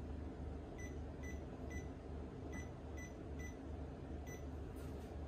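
Key-press beeps from a PushLL face-recognition finger-vein smart lock's touch keypad: seven short, high beeps, one per key, as a new six-digit admin password is keyed in and confirmed with the pound key.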